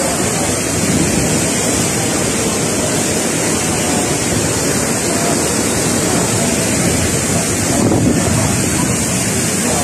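Typhoon wind and rushing floodwater making a loud, steady rush of noise, with wind buffeting the microphone.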